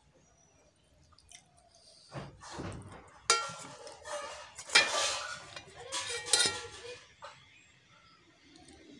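Stainless steel dishes clinking and ringing as a steel bowl and plate knock together while food is served and handled. There is a sharp clink a little over three seconds in, and more clattering around five and six seconds.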